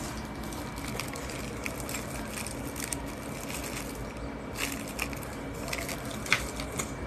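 Scattered, irregular key clicks from a Machenike K500 B61 mechanical keyboard being pressed, over a steady background hum.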